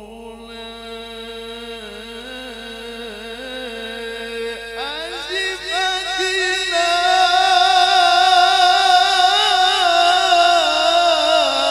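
A man reciting the Quran in the melodic mujawwad style, amplified through a handheld microphone, drawing out one long phrase with wavering ornaments. About five seconds in his voice sweeps up to a higher, louder pitch, then eases down a little near the end.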